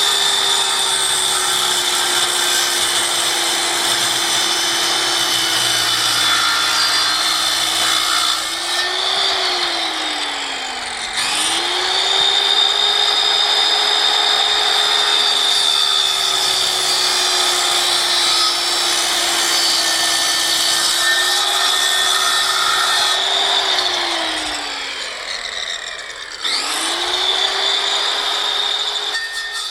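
Electric power saw running and cutting wood. Its motor tone sags a little under load, and twice it winds down and starts up again.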